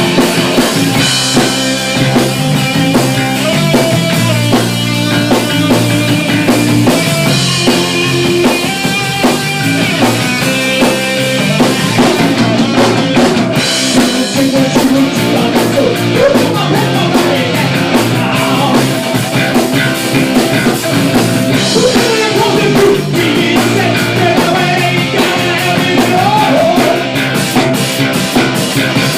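Loud rock music: a band playing with a driving drum kit, with a voice or lead line gliding in pitch in places.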